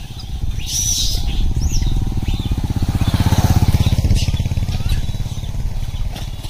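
Motorcycle engine passing by on the road, growing louder to a peak about halfway through and then fading.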